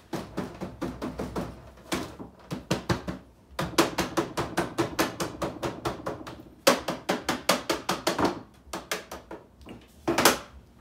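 Hands slapping the plastic casing of a flat-screen TV in quick runs of about five hits a second, broken by short pauses; the set is broken, its screen showing only a band of purple lines.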